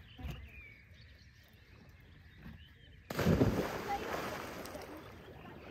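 A person jumping into the lake: a sudden loud splash about three seconds in, with the spray and churning water dying away over the next two seconds.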